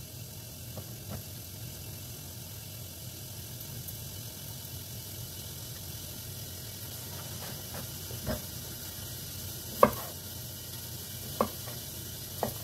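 Knife knocking on a wooden cutting board while garlic cloves are peeled and cut: scattered knocks, mostly in the second half, the loudest about ten seconds in. Under them a faint steady sizzle of bacon rendering in a lidded frying pan.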